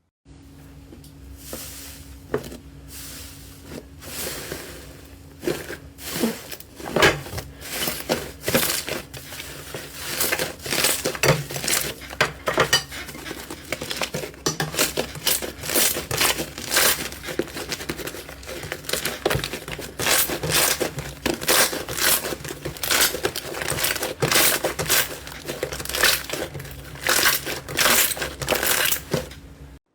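Slime being squeezed and pressed close to the microphone, making dense crackling and popping in irregular louder bursts.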